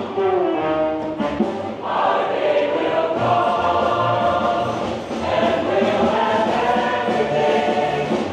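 Live brass band playing a tune in held, full chords.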